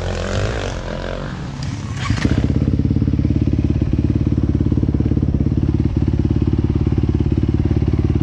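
Motorcycle engine idling with an even, rapid pulse, settling in about two seconds in after a couple of seconds of mixed engine noise and clicks.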